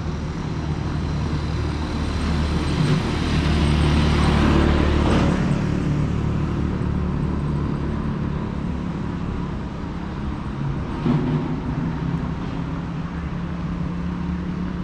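Steady road-traffic noise with a low engine rumble, swelling louder about four to five seconds in. A short knock comes near eleven seconds.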